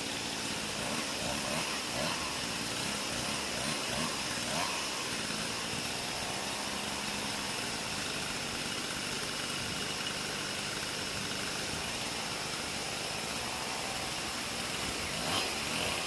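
An engine idling steadily, with a few small changes in level.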